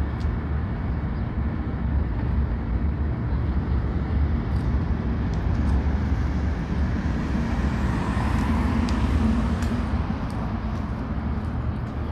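Steady street traffic rumble, with a vehicle passing about eight seconds in.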